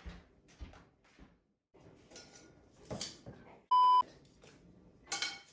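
A short, loud electronic beep at a single pitch, lasting about a third of a second and coming about three and a half seconds in, set among a few light knocks and clatters of kitchenware.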